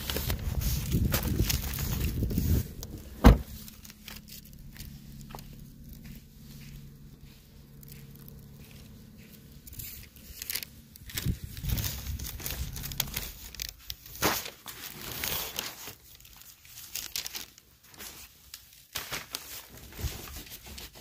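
A car door shuts with one loud thud about three seconds in, and the car's engine runs on faintly behind it for a few seconds. Then come footsteps and the rustle of a plastic takeout bag being carried and set down.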